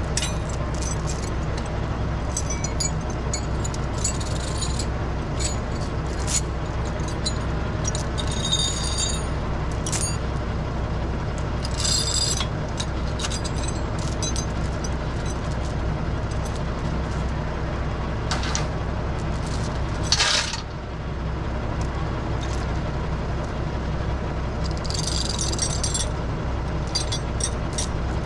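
Fendt 412 tractor's diesel engine running steadily, with scattered clanks and knocks and a few short hissing, rattling bursts, the loudest about two-thirds of the way in.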